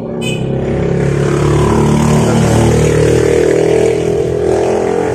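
A motor vehicle engine running loudly. It builds over the first second and a half, then holds steady, its pitch drifting slowly.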